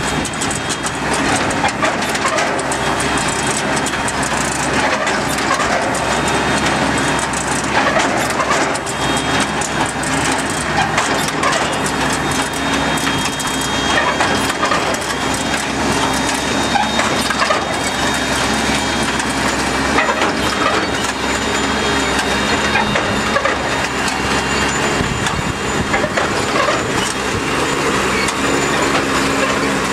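Turf harvester at work: its engine running steadily under a continuous crackling clatter from the cutting head, conveyor and stacking gear as sod is cut and carried up, with a faint steady high whine.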